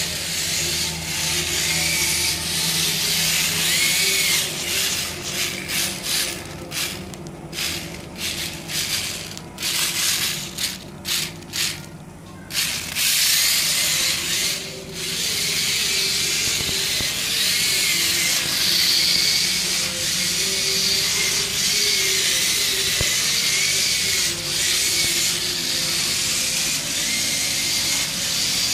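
Small DC gear motors of an Arduino-based remote-control car whirring as it drives. Midway the whir cuts in and out in a run of quick stops and starts, then runs steadily again.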